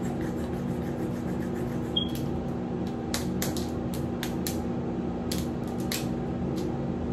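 A steady hum in a small room, with light rustling and a scatter of short clicks and scratches in the middle part.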